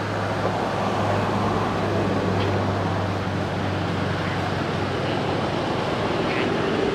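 An engine running steadily, a low hum over a broad, even rush of noise.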